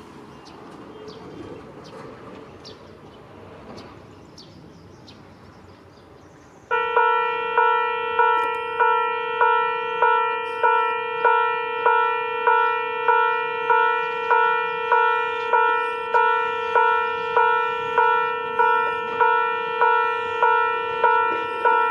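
Railway level-crossing warning bell starting abruptly about seven seconds in and clanging steadily, about one and a half strokes a second, signalling an approaching train. Before it, the faint running noise of the approaching Abukuma Express AB900 series train with a few bird chirps.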